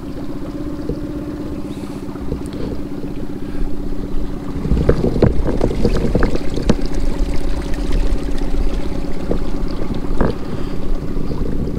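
Small boat motor on an inflatable pontoon running steadily with a constant hum. About four and a half seconds in it gets louder and rougher, with a deeper rumble and scattered clicks.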